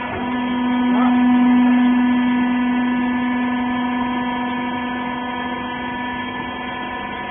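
Hydraulic rag baler's power unit (electric motor and pump) running with a steady hum. Its strong low tone swells just after the start and holds.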